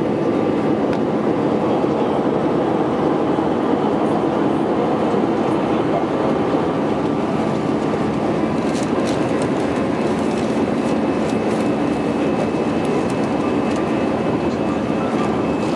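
Steady roar of an Airbus A320's jet engines and rushing air heard from inside the cabin during the climb after takeoff, with faint steady engine tones over it.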